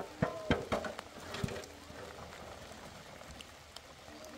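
Several sharp knocks and clunks in the first second and a half: a hollow concrete block being handled and knocked against a block kerb.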